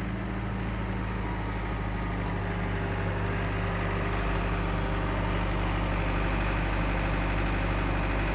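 John Deere tractor's diesel engine running at a steady speed as the tractor drives closer, growing slightly louder.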